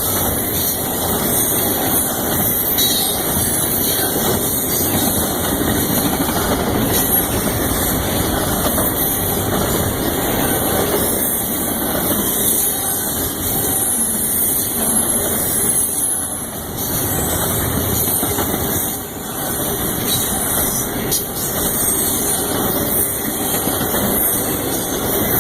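Union Pacific freight train rolling past: a steady, continuous noise of cars and wheels on the rails.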